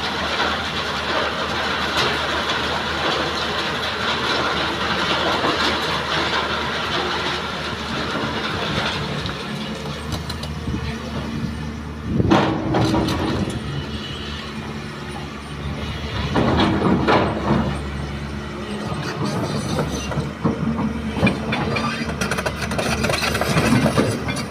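Hyundai hydraulic excavator's diesel engine running with a steady clattering rattle. It swells louder twice, about halfway through and again a few seconds later.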